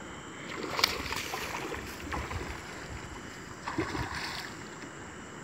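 Hooked snook thrashing at the water's surface, splashing in two bursts: about a second in and again around four seconds in.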